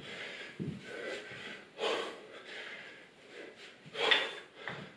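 A man breathing hard from exertion during dumbbell squat-to-overhead-press reps, with forceful exhales, the loudest about two seconds in and again about four seconds in, and a couple of soft thumps.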